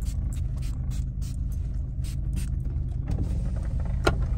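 Low, steady rumble of a car heard from inside the cabin, with a single sharp click about four seconds in.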